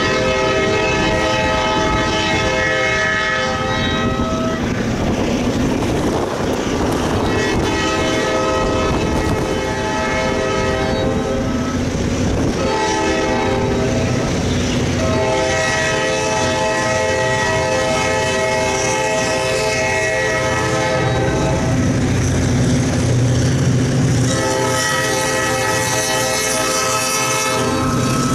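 Multi-tone air horn of the lead locomotive, EMD GP38-2 FURX 5554, sounding the long, long, short, long grade-crossing signal, then another long blast near the end. The freight train's diesel rumble grows louder as it draws near.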